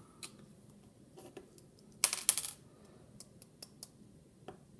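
Light clicks and taps of a pocket knife being handled, with a brief scraping rattle about two seconds in.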